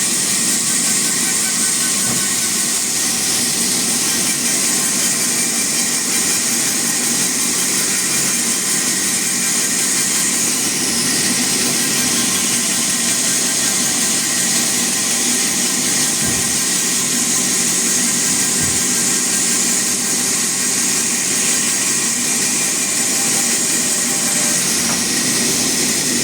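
Sawmill saw running and cutting steadily through a teak log: a continuous loud, hissing cutting noise over a steady machine hum.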